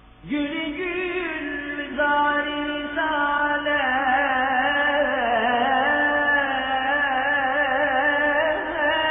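A solo male voice singing a Turkish na't in long, melismatic, ornamented lines. It enters loudly just after the start with an upward scoop in pitch, then holds wavering, trilled notes.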